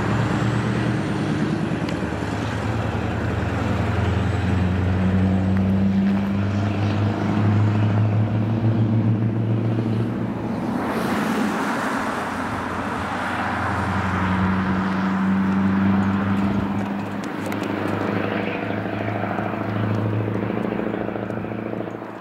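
Scania R560's V8 diesel pulling away under load with a deep, steady engine note. The note breaks off briefly about halfway through and again later as it works up through the gears, then drops away as the truck moves off.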